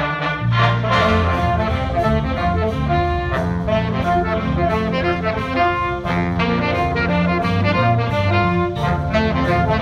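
Jazz big band playing: saxophones, trumpets and trombones sounding together in held and moving chords, over bass and a steady beat.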